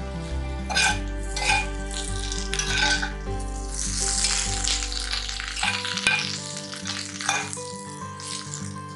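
Spatula stirring and scraping potato pieces frying and sizzling in oil in a heavy pan, in strokes about a second apart, over background music.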